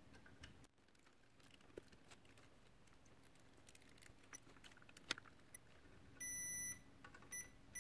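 Faint scattered clicks of multimeter probe tips tapping on circuit-board components. About six seconds in, the handheld digital multimeter's continuity beeper sounds: one high beep of about half a second, a short one, then another starting near the end. The beep means the meter has found a conducting path through a part that should not pass current, the shorted component behind the channel A fault.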